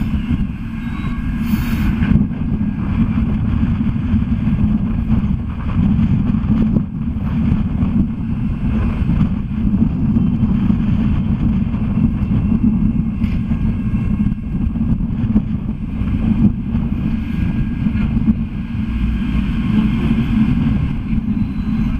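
Siemens-Duewag Sheffield Supertram passing close by at low speed: a steady low rumble of its motors and steel wheels on the street rails.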